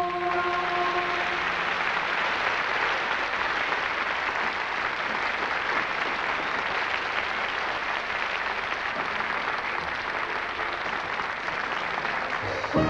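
Studio audience applauding steadily, with the children's choir's last held chord dying away about a second in.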